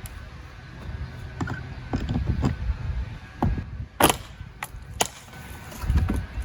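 Wooden window trim board being pulled out by a screw in it: low knocks and creaks as it works loose, with a sharp crack about four seconds in and another about a second later.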